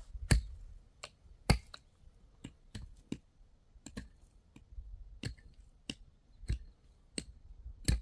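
Irregular sharp clicks and knocks, roughly one or two a second, with a few louder knocks standing out among fainter ones.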